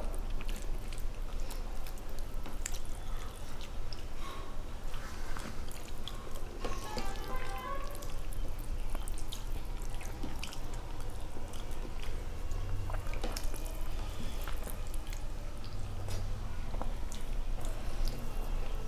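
Hands mixing and squishing soft, starchy rice in plastic plates, making many small wet clicks and squelches.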